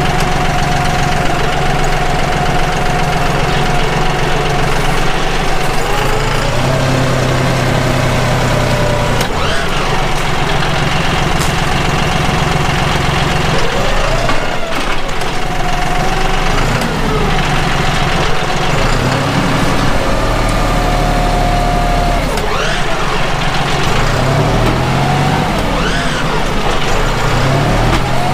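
John Deere 5055E tractor's three-cylinder diesel engine running loud and close, its pitch rising and falling again and again as the loader and grapple bucket push against a tree.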